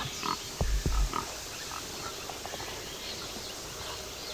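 Wild boar grunting: two short, low grunts close together about half a second in, over scattered short high chirps in the background.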